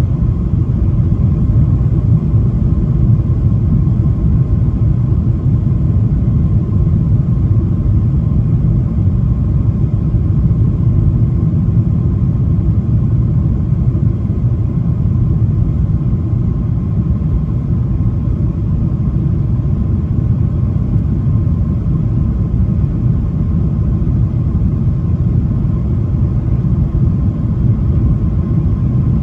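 Steady low rumble inside the cabin of a Boeing 737-800 descending on approach with its flaps extended: CFM56-7B engine noise and rushing airflow, heard from a window seat.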